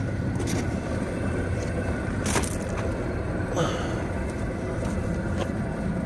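Steady low mechanical rumble, with a few sharp clicks as a rubber pressure-switch hose is worked off its fitting.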